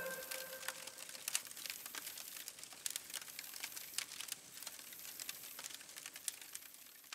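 Wood fire crackling: quiet, irregular sharp snaps over a soft hiss, slowly fading out toward the end.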